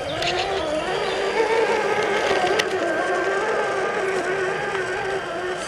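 Electric motor and gear whine of a scale RC crawler truck creeping over roots, the pitch rising and falling with the throttle.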